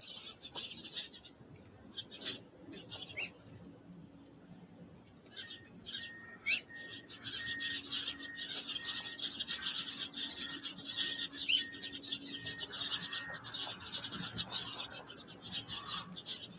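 Small wild songbirds calling in a dense, high-pitched twittering chatter, in brief patches at first and then continuous. Through the middle they are joined by a quick run of short repeated notes on one pitch.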